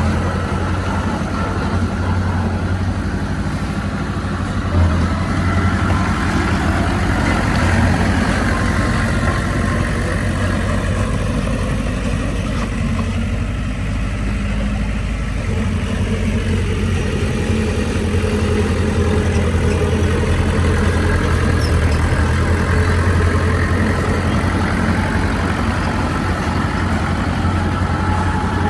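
Heavy diesel engine of earthmoving machinery running steadily at low speed, with its pitch drifting gently up and down.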